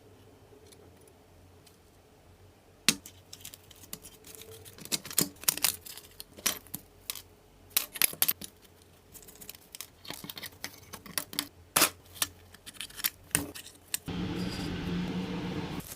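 Irregular sharp metallic clicks and clinks, like small metal parts or tools being handled, starting about three seconds in. Near the end a louder steady sound begins abruptly.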